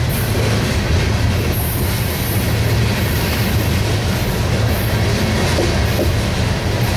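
Loaded coal hopper cars of a freight train rolling past: a steady, loud rumble of steel wheels on rail.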